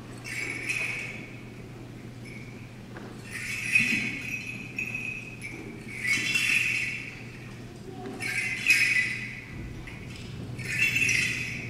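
Small bells on a swung church censer jingling in short bursts, one with each swing, about every two and a half seconds, five times, as the altar is censed.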